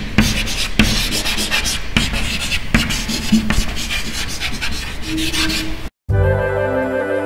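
Loud rubbing and rattling noise studded with irregular sharp clicks, which cuts off abruptly about six seconds in, after which a music track begins.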